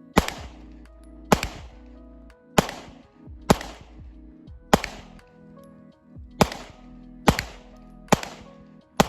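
Glock pistol fired in a steady string: nine single shots spaced about a second apart, each with a short ringing tail, over background music.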